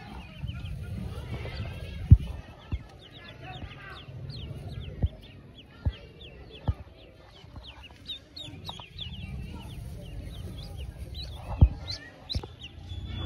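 Newly hatched Pekin ducklings peeping: many short, high chirps in quick succession. Straw rustles under the hand lifting them, with a few sharp knocks, the loudest about two seconds in and another near the end.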